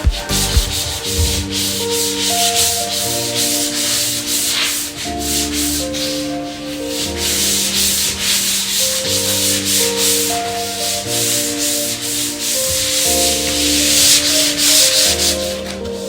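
Background music of held chords over a low bass line that shifts every second or two, mixed with a steady, loud rasping hiss like sanding or rubbing.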